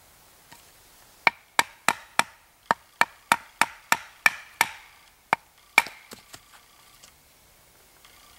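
Batoning fatwood: a wooden baton striking the spine of a large knife driven into the wood on a stump. A quick run of about a dozen sharp knocks, roughly three a second, each with a short ring, then a few lighter taps.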